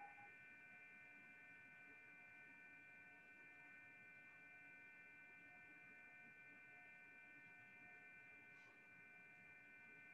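Near silence: faint room tone with a steady electrical hum made of several high, unchanging tones.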